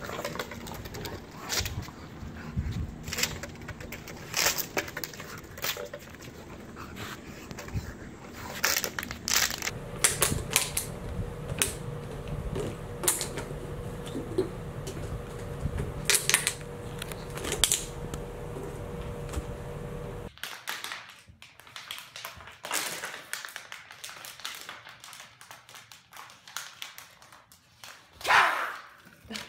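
Empty plastic water bottles clattering and crinkling as puppies bat, bite and push them across the floor: a run of irregular clicks and knocks, with one louder brief sound near the end.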